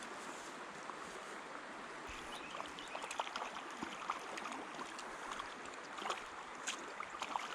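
Steady rush of a flowing creek, with small irregular splashes and water clicks from about two seconds in, typical of a small trout being played or handled at the water's surface.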